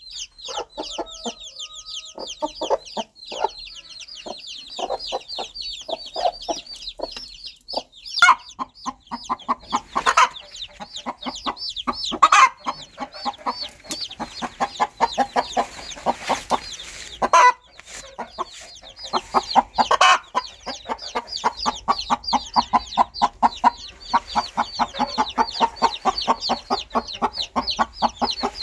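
Baby chicks peeping in a dense chorus of high-pitched chirps, joined about eight seconds in by a mother hen's fast, rhythmic clucking as she calls them, with a few louder calls standing out.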